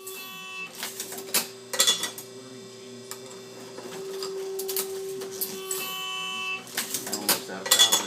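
MEC 9000H hydraulic shotshell reloading press cycling: a steady hum under sharp metallic clanks and clicks as the press strokes and indexes. The clanks come in two bursts, one near the start and one near the end, with the hum alone between them.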